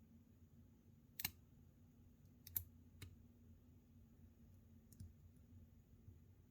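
Small metallic clicks of a lock pick and tension wrench working the pins in the keyway of a Master Lock No. 570 pin-tumbler padlock: a few sharp, separate ticks, the loudest a double click about two and a half seconds in.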